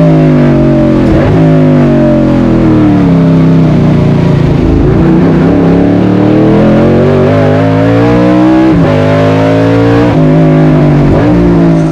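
Fuel-injected 5-litre Chevrolet 302 V8 race engine heard from inside the cockpit, where it sits beside the driver, pulling hard through the gears. The revs climb and drop sharply at quick upshifts about a second in and again near the end, with a stretch in the middle where the revs fall away as the car slows and downshifts.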